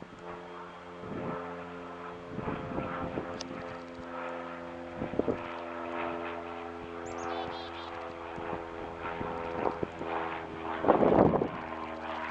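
Propeller plane flying low, its engine drone a steady set of tones throughout, with a brief louder rush of noise about eleven seconds in.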